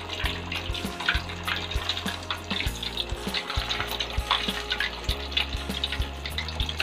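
Egg-coated tapioca-dough balls (cilor) on skewers deep-frying in hot oil in a wok: a steady crackling sizzle with many small pops.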